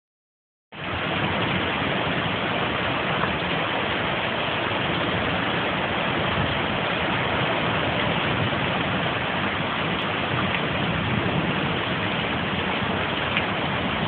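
Steady heavy rain hissing, starting just under a second in, with no siren tone audible above it.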